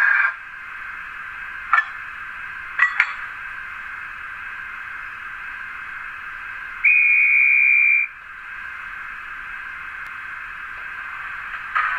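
Digital sound from a Roco H0 model of a DB class 50 steam locomotive with a Zimo sound decoder, played through the model's small speaker. A few short metallic clanks of its coupling sound come in the first three seconds. A conductor's whistle then blows once for about a second near the middle, over a steady background hiss.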